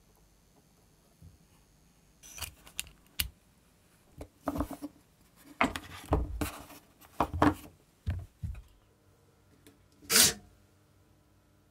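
Plastic parts of a Lego Power Functions Medium Motor being handled and fitted together: a run of irregular clicks, scrapes and rustles over several seconds. Near the end a faint steady hum sets in, with one short loud burst of noise about ten seconds in.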